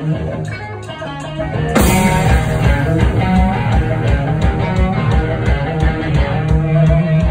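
Live rock band with electric guitars, bass and drums. Guitars play at first; about two seconds in the drums come in with a crash, and the full band plays on with a steady driving beat.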